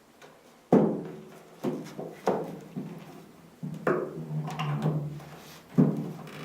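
A series of sharp knocks and thuds, about five of them with smaller taps between: an iMac being handled and laid face down on a desk.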